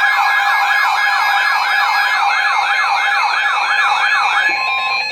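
Loud electronic siren-style alert tone announcing an emergency alert broadcast: two tones sweeping rapidly up and down past each other, about two to three sweeps a second, settling into a brief steady tone near the end.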